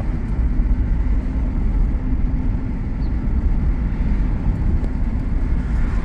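Honda Civic four-cylinder engine running steadily under load in fourth gear, heard from inside the cabin over road noise, with a rod knock from a worn connecting-rod bearing.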